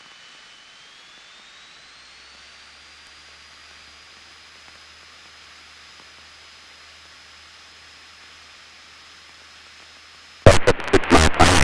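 Steady faint hiss of a light aircraft's headset intercom feed, with a thin high whine that rises in pitch about a second in and then holds. About ten seconds in, a sudden loud burst of crackling noise cuts in as the intercom or radio audio opens.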